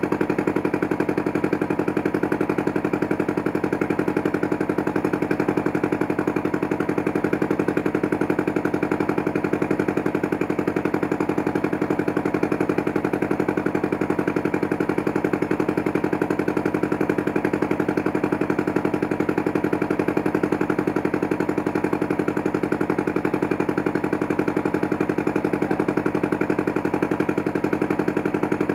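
A boat's engine running steadily under way, a continuous hum that holds the same pitch and level throughout.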